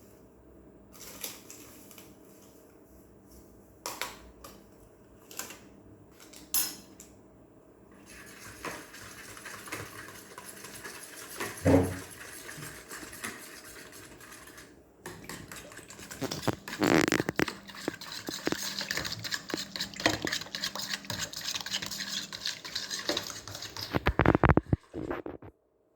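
Kitchen utensils and dishes clinking and scraping. There are a few separate clicks at first, then steady clattering and scraping from about eight seconds in, loudest in the second half, stopping just before the end.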